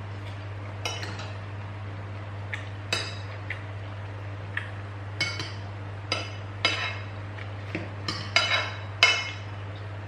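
Cutlery clinking against plates during a meal: about a dozen irregular light clinks, the loudest cluster near the end. A steady low hum runs underneath.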